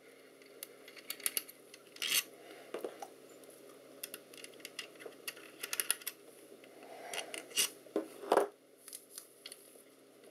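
Scattered light clicks and scrapes of small metal parts and tools being handled while a metal part of the sight is worked at by hand. A few louder scrapes come about two seconds in and near the end.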